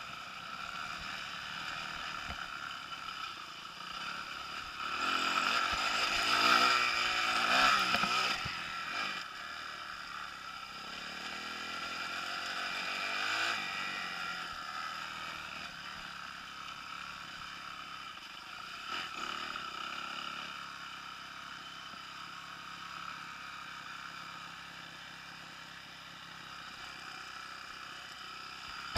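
Kawasaki KX250F single-cylinder four-stroke motocross engine revving and easing off under throttle on a dirt track. It is loudest about five to nine seconds in, swells again briefly, then settles to a lower, quieter run toward the end.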